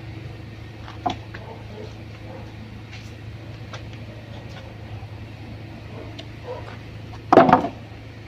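Parts of a window-type aircon being handled during disassembly: scattered light clicks and taps of metal and plastic, a small knock about a second in and a louder clunk about seven and a half seconds in, over a steady low hum.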